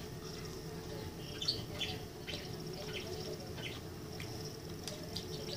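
Chewing a bite of crispy fried chicken tender: irregular small crunches and mouth clicks over a steady low hum.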